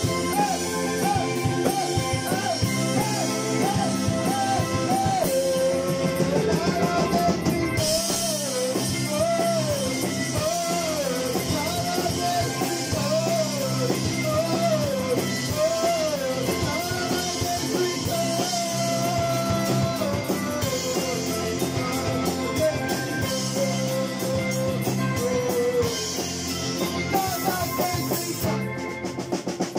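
Live rock band performing: a singer over electric bass, guitar and drum kit.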